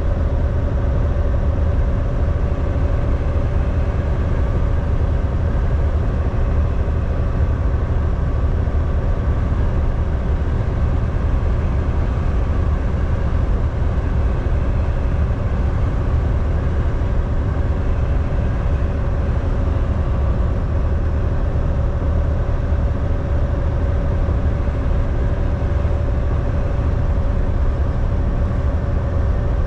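Volvo semi truck driving at a steady pace: a constant low engine and road drone with a steady mid-pitched hum over it, unchanging throughout.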